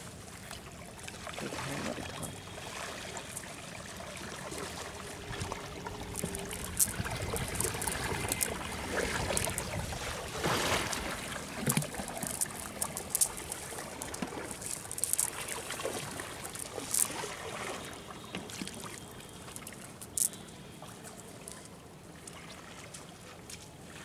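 A wet nylon cast net being handled while the catch is picked out of it, with trickling water and scattered sharp clicks and ticks.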